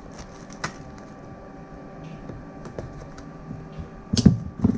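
Hands handling a shrink-wrapped cardboard smartphone box: light scattered taps and clicks of fingers on the box and its plastic film, with a louder knock about four seconds in and another just before the end.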